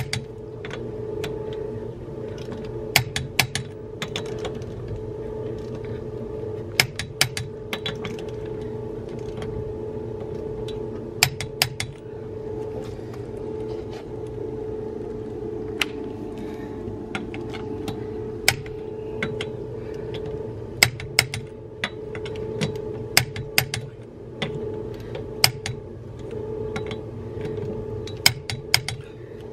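Click-type torque wrench tightening wheel lug nuts: sharp metallic clicks, often in pairs, every few seconds. Each click shows that the nut has reached the set torque. A steady low hum runs underneath.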